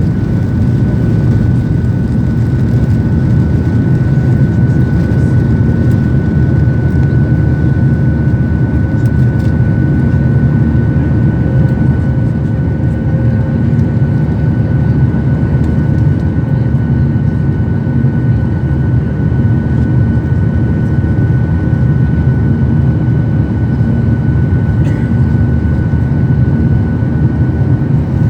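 Boeing 737-800's CFM56 jet engines running steadily, heard from inside the passenger cabin as a constant low rumble with a thin, steady whine above it.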